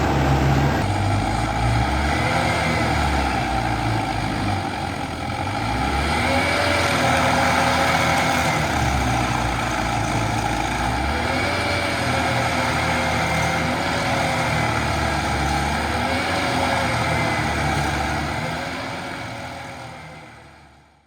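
A heavy engine on tree-removal machinery running, its pitch rising and falling again and again as it revs or takes load, fading out near the end.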